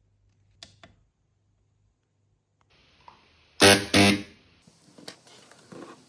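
Microwave-oven-transformer spot welder firing a double pulse about three and a half seconds in: two loud, short buzzes in quick succession. Light clicks come before and after.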